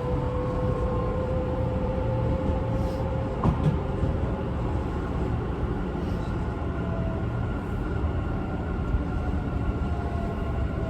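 Tobu 50090 series electric train heard from inside car 8: a steady low running rumble with thin motor tones gliding slowly in pitch, and one short knock about three and a half seconds in. The uploader says this car's motor sounds unusual, perhaps because it is a different type of motor.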